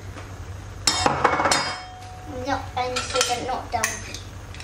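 Metal spoons clinking against a frying pan and each other, with a quick cluster of clinks and knocks about a second in.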